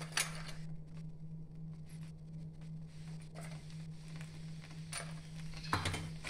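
Faint, steady low hum, with a few light taps and scrapes of a spoon and masher against a steel pot of chickpeas and potato as turmeric is added.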